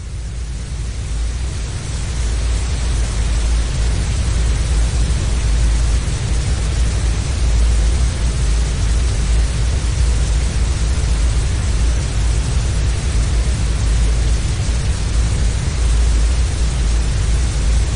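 Deep black noise, a steady synthetic noise weighted heavily toward the deep bass with a softer hiss above. It fades in over the first few seconds and then holds constant.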